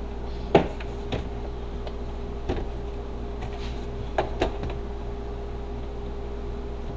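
About five short knocks and clicks from vehicle interior trim panels being lifted and moved by hand, over a steady low hum. The sharpest knock comes about half a second in, and two come close together a little past four seconds.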